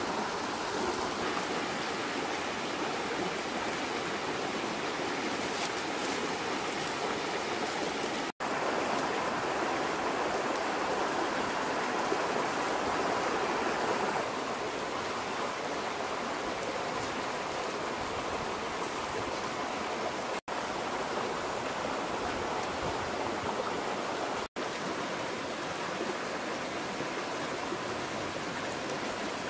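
Shallow river rushing steadily over rocks, an even watery hiss, cut by three very brief dropouts.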